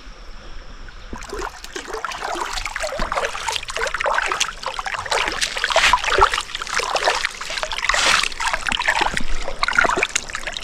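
River water splashing and trickling close by, with busy, irregular splashes starting about a second in.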